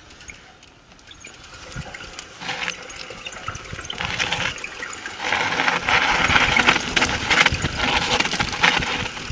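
Norco Range mountain bike descending a dirt and rock singletrack: rushing tyre and air noise with rattles and knocks from the bike, building up about five seconds in as speed picks up.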